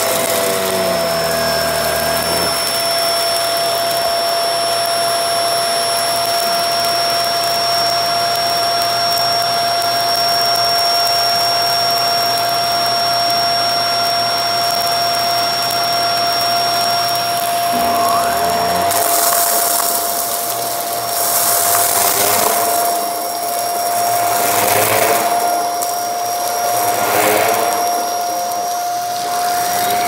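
Shark upright vacuum cleaner running with a steady high motor whine. In the second half its sound swells and fades every second or two as it is pushed back and forth over a thick shag rug.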